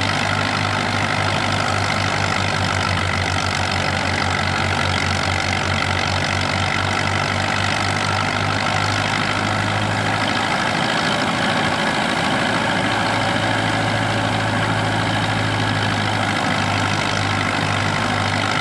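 Belarus 510 tractor's four-cylinder diesel engine running steadily under load as it drives a wheat thresher, with the thresher running alongside as a dense, even machine noise.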